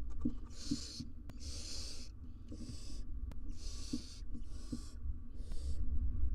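Barn owls giving rasping hiss calls, a run of breathy hisses about half a second long each, roughly one a second, over a steady low hum.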